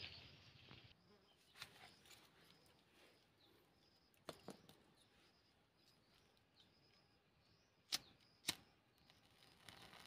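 Two sharp clicks of a pocket lighter being struck, about half a second apart, near the end, with a few fainter clicks and knocks earlier.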